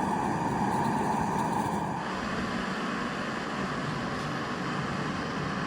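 Portable gas camp stove burner running with a steady hiss, its tone shifting slightly about two seconds in.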